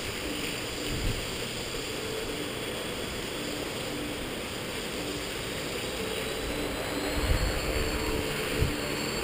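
Skyartec Wasp V3 RC helicopter in flight: a steady hum from its rotor and motor, with a faint whine that rises slowly in the second half. Gusts of wind buffet the microphone near the end.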